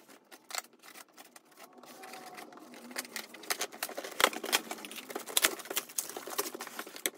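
Scissors cutting the packing tape on a cardboard box and the flaps being pulled open, tape and cardboard tearing in a quick run of crackles and snaps that grows busier about two seconds in.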